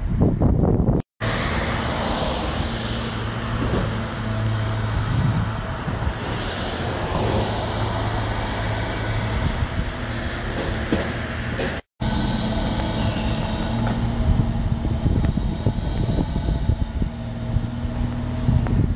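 Demolition excavator's diesel engine running at a steady pitch, with occasional knocks from the work on the building.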